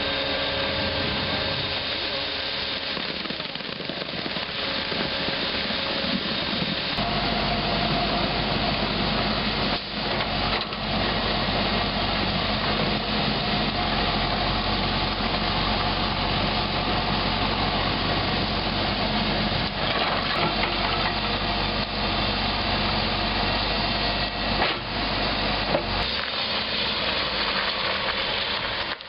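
Engines of heavy work equipment running steadily, with a hissing noise over them; a deeper, low engine rumble joins about seven seconds in.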